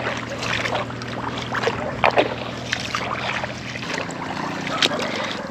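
Footsteps wading through shallow water over a mudflat, an uneven run of sloshes and small splashes.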